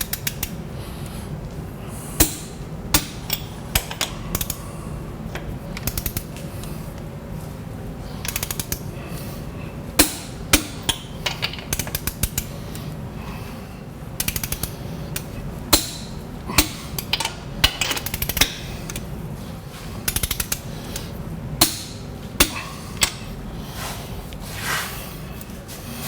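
Sharp metallic clicks and knocks from hand tools on bolts, coming irregularly and sometimes in quick little clusters, over a steady low hum.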